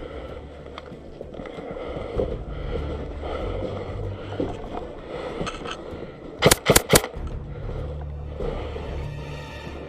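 Three quick airsoft rifle shots, sharp and loud, in close succession about two-thirds of the way through, over a steady low background noise.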